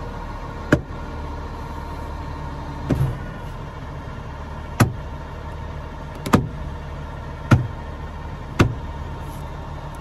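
Plastic clips of a Honda Element's interior trim panel snapping into place as the panel is pressed home: six sharp snaps, a second or two apart. Under them, a garbage truck's engine running steadily.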